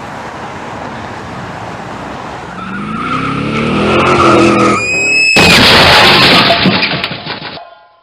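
Car crash sound effect: a car's engine rises in pitch as it speeds closer, its tyres squeal briefly about five seconds in, then a sudden loud crash of impact and debris that dies away near the end.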